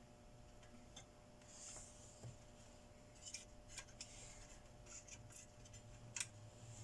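Faint, scattered small clicks and light rubbing as parts of a Telwin inverter welder are handled during disassembly, over a low steady hum.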